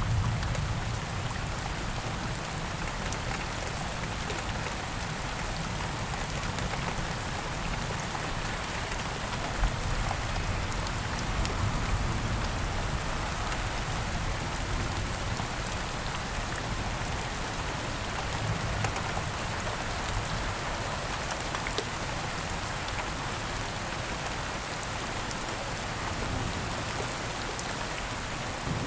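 Steady rain falling, an even patter of drops at a constant level.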